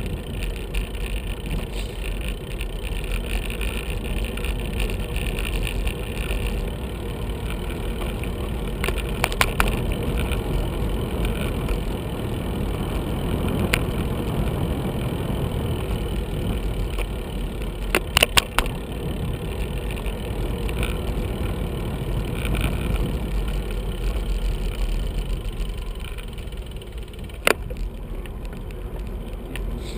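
Bicycle riding along a street, heard from a bike-mounted camera: steady tyre and wind noise, with several sharp clicks from bumps, a cluster of them about 18 seconds in and one near the end.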